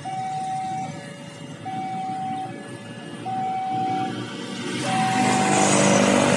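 Railway level crossing warning alarm sounding a two-tone high-low chime, alternating about every 0.8 seconds, the signal that a train is approaching. A rising rumble builds beneath it from about five seconds in.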